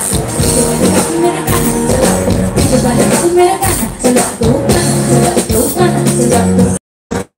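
Loud live band music with a steady beat and a repeated melodic line. It cuts off abruptly to dead silence about a second before the end, with only a brief blip of sound after.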